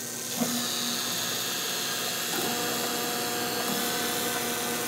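Soft-serve machine's candy mix-in motor whirring steadily while it blends Butterfinger pieces into soft serve being dispensed into a cup. A lower steady hum joins about two and a half seconds in.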